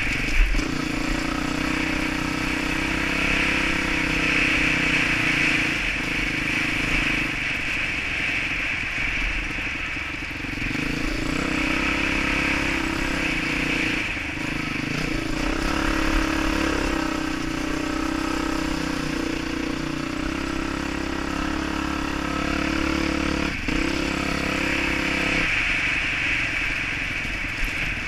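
Dirt bike engine running while riding a trail, its pitch rising and falling with the throttle, with a couple of sharp knocks from bumps.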